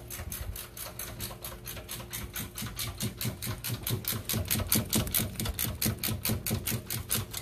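Ratchet wrench clicking rapidly and evenly, about seven clicks a second, as it is worked on a bolt of the alternator bracket, with a few dull knocks.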